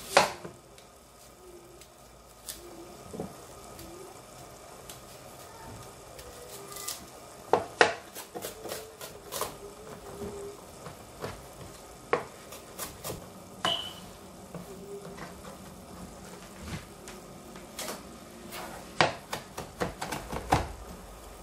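Chef's knife slicing a red onion and chopping parsley on a plastic cutting board: irregular sharp knocks, some in quick runs, with a faint steady bubbling of balsamic vinegar boiling down in a saucepan underneath.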